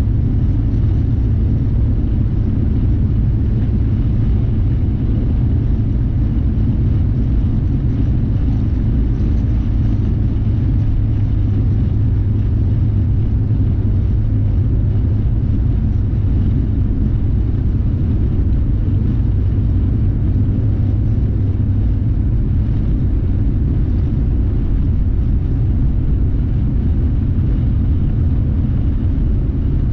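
Steady low rumble of a car driving along a sealed road, engine and tyre noise heard from inside the cabin, even and unchanging throughout.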